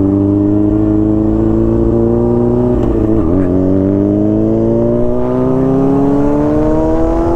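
Motorcycle engine running under way, its pitch climbing slowly and steadily with a brief dip about three seconds in.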